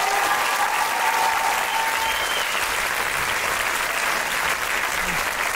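Theatre audience applauding steadily, with a drawn-out cheer over the first two seconds.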